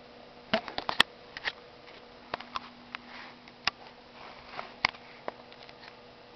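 Kittens scuffling and pawing close to the camera: irregular sharp taps and knocks, the loudest about a second in and again near five seconds, with soft rustling between them.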